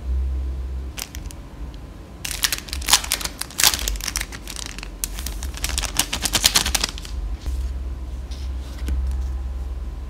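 Clear plastic packaging film being handled, crinkling and crackling in a dense run of sharp clicks that starts about two seconds in and stops about five seconds later, over a steady low hum.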